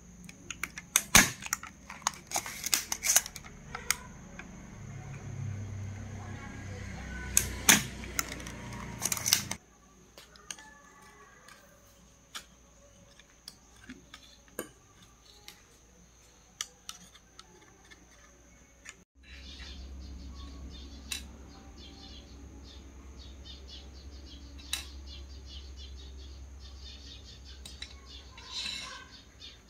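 A gun-type soldering iron hums while a spring-loaded desoldering pump snaps sharply several times, drawing solder off the joints of a TV power supply board. About ten seconds in this gives way to faint clicks and taps of the board being handled, and later to a steady low hum with the odd tick.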